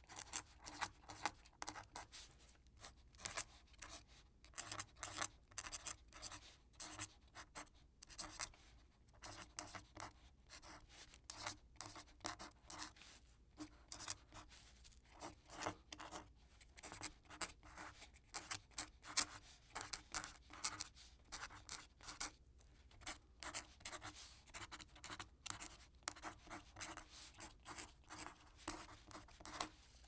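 Quill pen writing on paper: quick, irregular scratching strokes of the nib, in runs broken by brief pauses.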